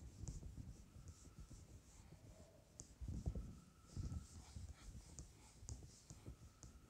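Faint rubbing of a handheld duster wiping marker off a whiteboard, in a few soft strokes with light ticks.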